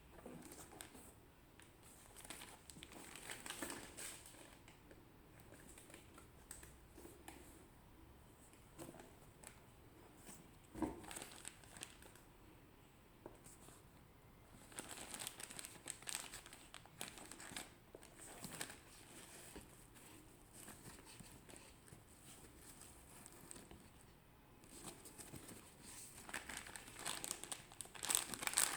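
Quiet, irregular crinkling and rustling of paper packaging as a pair of sneakers is unwrapped and handled, with a single sharp knock about eleven seconds in. The crinkling grows denser and louder near the end.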